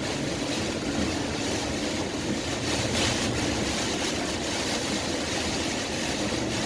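Cabin noise of a 2003 Honda Accord V6 driving on a wet road under light acceleration: steady engine and tyre noise with rain.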